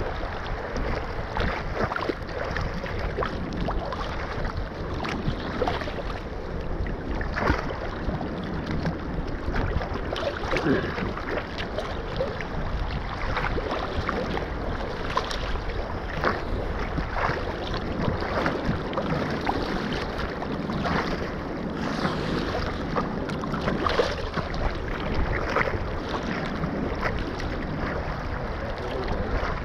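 Choppy sea water sloshing and splashing right at the microphone, with many small splashes as a gill net is paid out into the water, and wind on the microphone.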